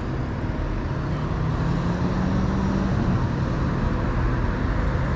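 Road traffic: a passing vehicle's engine hum and tyre noise, steady and slowly growing louder.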